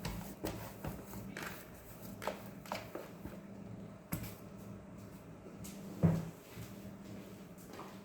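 Scattered knocks and clicks of things being handled on a kitchen counter, with one louder thump about six seconds in, over a steady low hum.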